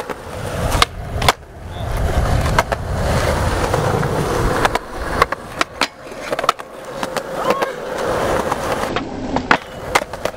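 Skateboard wheels rolling on concrete, with a series of sharp clacks from the board popping off and landing on the ground.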